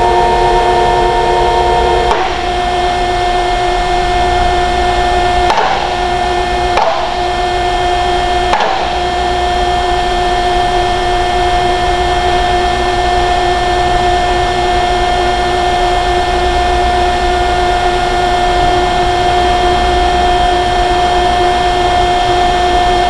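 Industrial machinery running with a loud, steady drone made up of several held tones, with four sharp metallic knocks between about two and nine seconds in.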